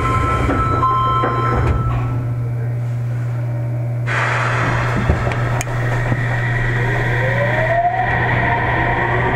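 Sendai Subway 1000 series train at a station stop: electronic tones at first, then a sudden rise in noise about four seconds in and a click. From about six and a half seconds in, the Mitsubishi IGBT-VVVF inverter starts a rising whine as the train pulls away.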